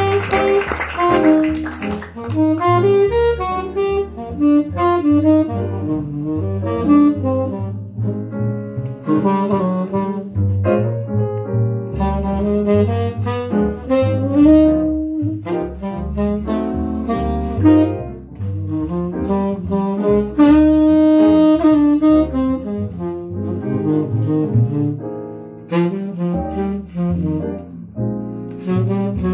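Live small-group jazz: a tenor saxophone plays a flowing melodic line over piano and double bass accompaniment.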